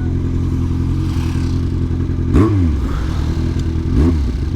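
Yamaha XJ6's inline-four engine running steadily with a loud rumble, blipped twice, about two seconds in and again near the end, each rev rising and falling quickly.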